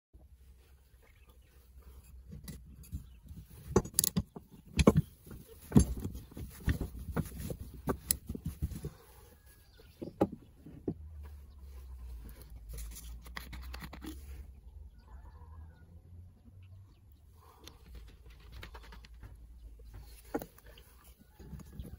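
Scattered knocks and clicks of a rusty hand drill being handled on a wooden workbench, loudest over the first half.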